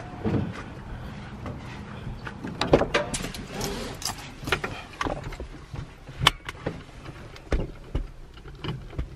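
Inside a first-gen Toyota Tacoma's cab: scattered clicks and knocks from keys, dash controls and the manual gear lever being shifted, over a steady low hum of the truck's engine idling.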